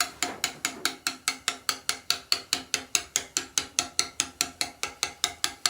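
Steel stone-carving chisel struck by a hammer in a quick, even rhythm, about five blows a second, each with a short metallic ring, cutting into a stone headstone.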